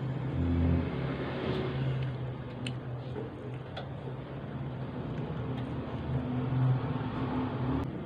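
Close-miked chewing of french fries, soft mouth sounds with a few small sharp clicks, over a steady low background hum.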